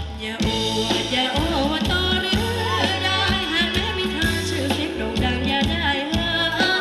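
Thai ramwong dance music from a live band: drum kit and bass keep a steady beat while a singer's wavering melody runs over the top.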